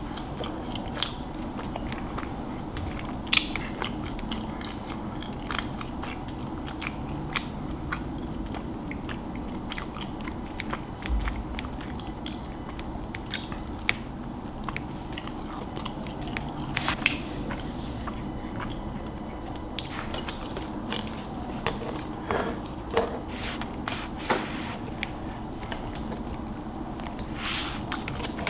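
Close-miked chewing and mouth sounds of a person eating, with many short, irregular wet clicks and smacks over a steady low hum.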